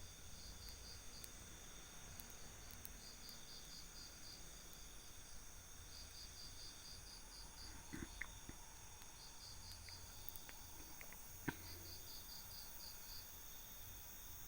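Crickets chirping in short, high trills repeated every second or two over a steady high insect drone. There are faint knocks about eight seconds in and again near the end.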